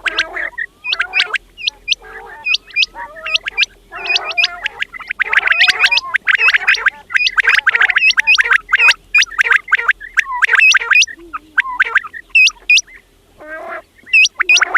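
Quails calling together: a dense run of short, sharp high-pitched calls mixed with harsher rasping calls. The chorus thins out in the last few seconds.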